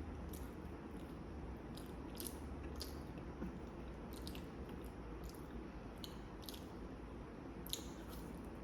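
Close-miked chewing of food, with irregular wet mouth clicks and smacks over a low steady hum.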